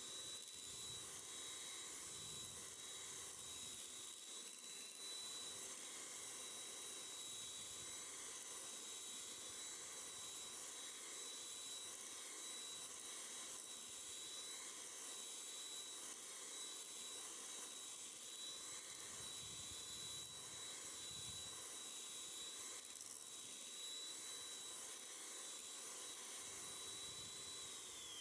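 Electric hand mixer running steadily, its twin beaters whipping cream in a stainless steel bowl, with a steady high motor whine over a hiss. Right at the end the whine falls in pitch as the mixer is switched off and winds down.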